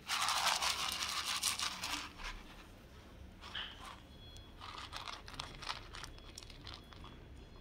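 Dog eating dry kibble from a plastic bowl: kibble rattling against the bowl and crunching between its teeth. It is densest and loudest in the first two seconds, then settles into quieter, scattered crunching.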